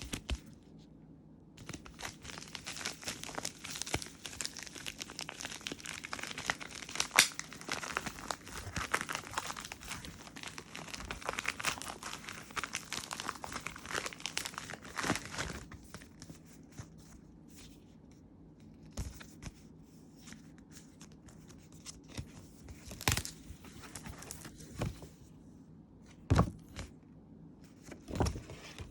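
Packaging being torn open and crinkled by hand: about fourteen seconds of continuous crackly tearing and rustling, then a few scattered rustles and several sharper taps and knocks near the end.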